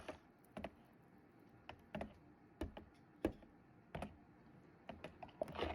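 Faint light clicks and taps, about a dozen, irregularly spaced.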